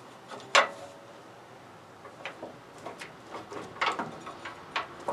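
Steel open-end wrenches clinking against each other and a seized hydraulic line fitting as they are fitted and pulled. One sharp, ringing clank about half a second in, then several lighter metallic clicks and taps.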